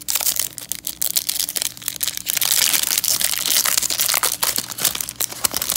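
Foil wrapper of a trading-card pack being torn open and crinkled by hand, a dense crackling that grows loudest in the middle and eases off near the end.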